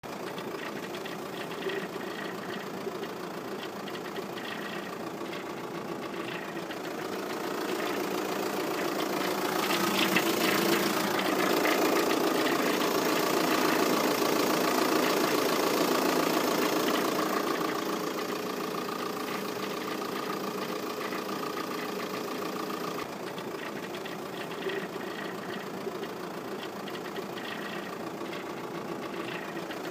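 VW Passat 3C 2.0 TDI four-cylinder diesel engine running, with a fine rapid ticking or knocking in it: an unexplained engine noise whose source the owner is asking about. It gets louder from about eight seconds in and settles back down at about eighteen seconds.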